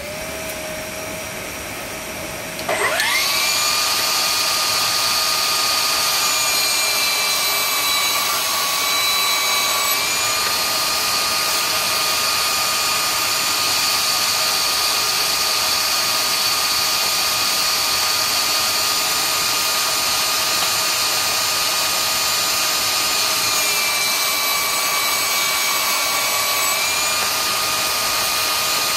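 A Milwaukee M18 cordless shop vac and a Milwaukee Fuel cordless table saw starting up one after the other: the second, louder motor spins up with a rising whine about three seconds in. Then both run together steadily, the pitch sagging briefly twice.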